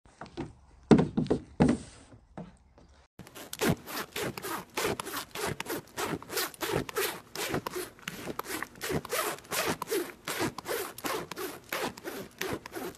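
A few short knocks and scrapes in the first three seconds, then a horse's mouth rubbing and nibbling at a person's fabric sleeve: quick, even scraping strokes, several a second.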